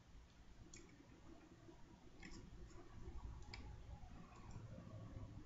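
Near silence: faint room hum with a few soft, isolated clicks spaced a second or more apart, such as those made while working a drawing program on a computer.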